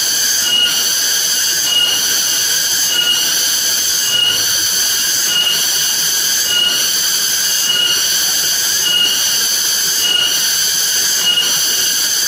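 Cicadas buzzing in a loud, high-pitched drone that pulses evenly, about once a second.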